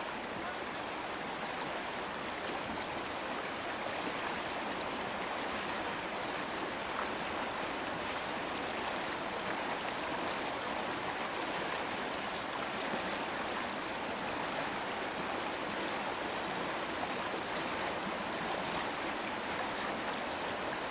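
Franconia Brook, an ice-choked mountain brook, running with a steady, even rush of water.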